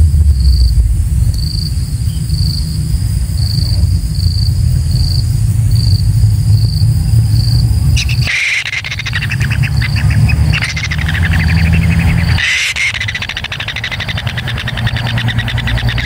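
Kingfisher chicks in the nest making rasping, rapidly pulsed calls that start about halfway through, with a short break near 12 seconds. Under them runs a loud low rumble, and in the first half there are faint high pips about twice a second.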